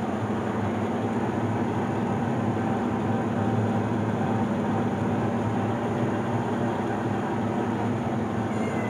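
Basement furnace running with a steady, noisy drone and a low hum that holds at an even level.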